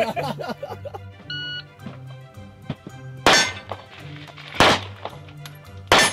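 Smith & Wesson Shield pistol firing three shots about a second and a half apart at steel targets, each a sharp crack with a short ring after it, over background music. About a second in, a short electronic beep sounds, the shot timer's start signal.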